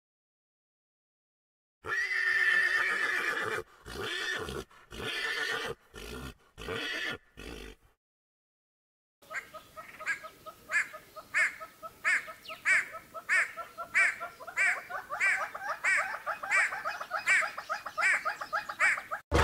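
A horse whinnying in several broken bursts, then, after a short pause, great hornbills calling in a steady run of sharp, evenly spaced calls, about two a second.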